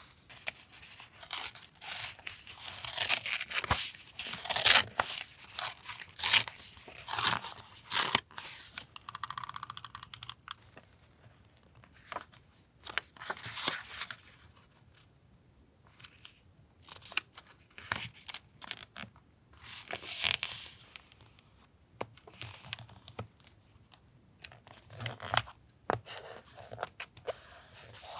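Paper being torn and handled for a collage journal: tearing and rustling in irregular bursts, with a quick rattling run about ten seconds in and quieter pauses in between.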